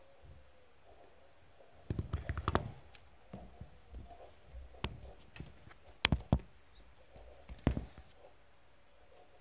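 Irregular clicks and light knocks in a wire rat cage: a quick cluster about two seconds in, then single sharp ones every second or so.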